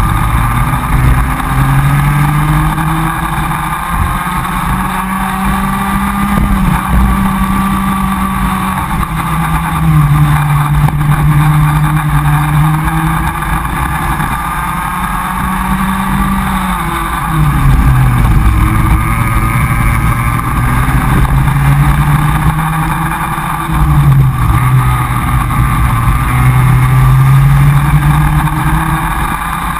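Comer cadet kart's two-stroke engine at racing speed, heard from onboard. Its pitch drops a few times as the kart slows for corners and climbs back up on the straights.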